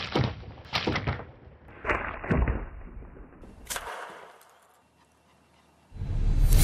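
Slingshot shots and their hits on targets: about five sharp snaps and thuds in the first four seconds, each cut short. After a brief silence, music comes in loudly near the end.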